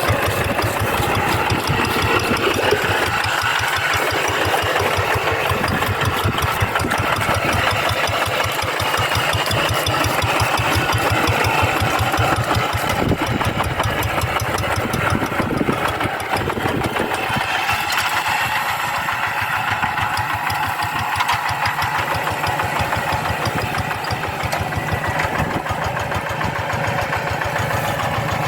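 Rice-paddy tractor's diesel engine running steadily with a fast, even chugging beat.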